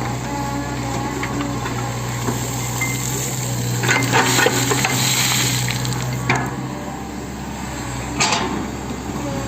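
Hitachi 110M excavator's diesel engine running steadily under work, with repeated metallic clanks and rattles from the bucket and linkage: a cluster about four seconds in, then single knocks about six and eight seconds in. The engine hum eases near the end.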